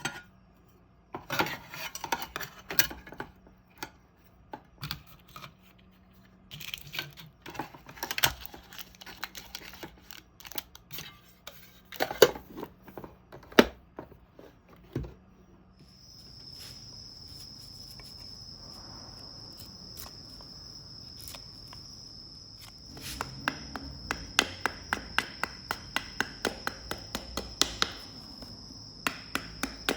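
Clinks and knocks of a metal grill plate and its parts being handled, then a steady hiss with a thin high whine comes in about halfway, and from about three-quarters of the way a regular series of sharp taps, about two a second.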